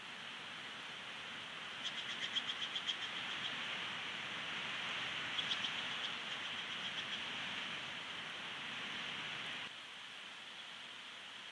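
Bald eagle calling: a rapid series of high, thin chirps about two seconds in, then two shorter, fainter series a few seconds later, over a steady hiss of rain.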